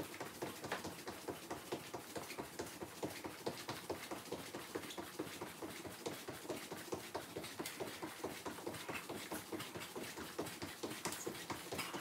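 Feet landing on the floor in a steady rhythm of jumping jacks, about two to three soft thuds a second.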